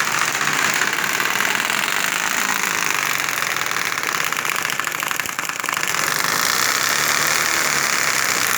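Paper fixed to a bicycle flapping against the turning wheel's spokes, making a rapid, steady rattling buzz that imitates a motorcycle engine. It dips briefly a little past five seconds in.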